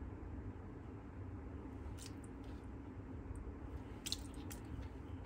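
Vinegar poured from a plastic bottle onto raw chicken pieces in a steel bowl: a faint wet trickle, with a few light clicks of the bottle being handled.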